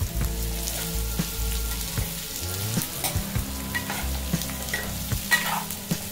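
Vegetables frying and sizzling in hot oil in a non-stick kadai while a spatula stirs them, with frequent clicks and scrapes of the spatula against the pan. The pan holds spiny gourd (aakakarakaya) pieces with onions and green chillies.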